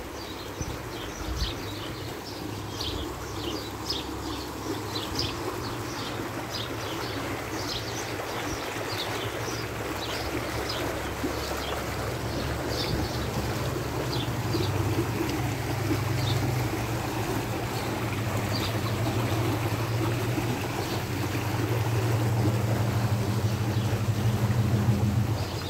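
Muddy floodwater rushing down a swollen arroyo in a steady rush that grows louder toward the end, with a deepening low rumble. Short high chirps sound over it through the first half.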